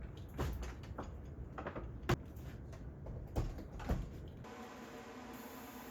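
A few light clicks and knocks, about five in four seconds with the sharpest about two seconds in, as small hard pieces of handle-scale material are handled on a bench. After that it drops to a quieter, steady hum.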